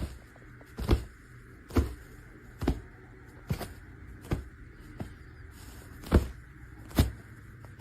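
A run of evenly spaced knocks, a little more than one a second, over a steady hum.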